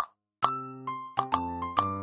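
Background music: a light melody of short, ringing notes over a low bass note, breaking off briefly just after the start.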